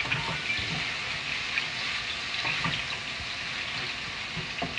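Steady sizzle of onions frying in hot oil, with breaded cutlets frying in a second pan. A wooden spoon stirs the onions, knocking softly against the pan a few times.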